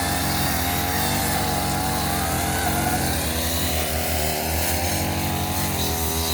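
Petrol brush cutter's small engine running steadily at high speed while cutting through undergrowth, its pitch wavering slightly as the load changes.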